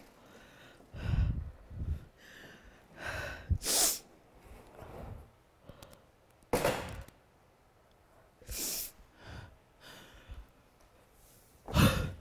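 A person breathing hard and unevenly: about half a dozen loud, noisy inhales and sighing exhales a couple of seconds apart, the heaviest near the end.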